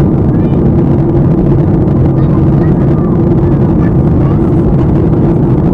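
Steady, loud cabin noise of a jet airliner in flight: the drone of engines and rushing air, with a steady low hum running through it.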